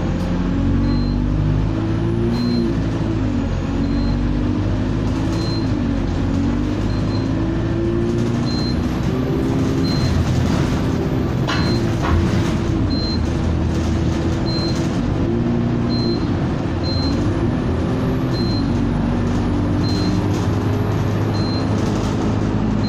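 Bus engine running as the bus drives, heard from inside the passenger cabin over road noise, its pitch rising and falling as it pulls away and slows. A faint high tick repeats about once a second, and there is a short knock about halfway through.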